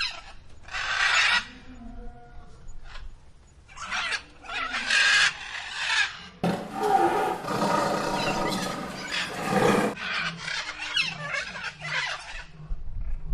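A series of zoo animal calls: short calls separated by pauses, and a long, harsh call of about three seconds in the middle.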